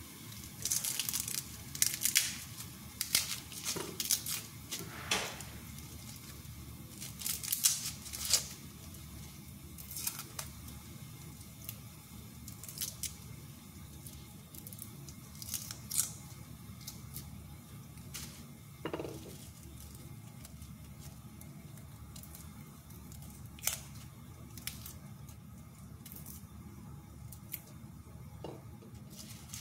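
Dry, papery garlic skins crackling and tearing as cloves are peeled with a small knife: a run of short, crisp rustles and clicks, busiest in the first several seconds and more scattered after.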